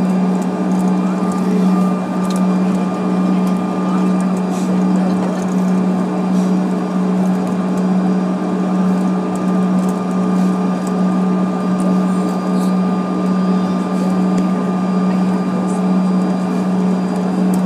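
Bombardier CRJ-700 cabin noise while taxiing: the steady drone of its two rear-mounted turbofan engines, a low hum with a fainter high whine above it and an even rush of air.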